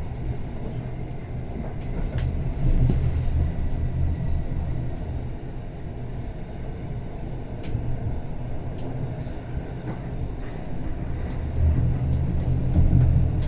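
Bernina Express passenger coach running along the track, heard from inside as a steady low rumble with occasional light clicks and knocks. It swells louder a couple of seconds in and again near the end.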